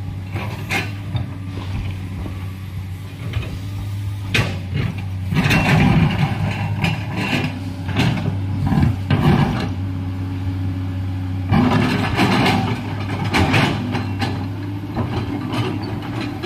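Komatsu crawler excavator working: its diesel engine runs with a steady low hum while the bucket scrapes and shifts stony soil, with bursts of rocks clattering and grinding about four to nine seconds in and again about twelve to fourteen seconds in.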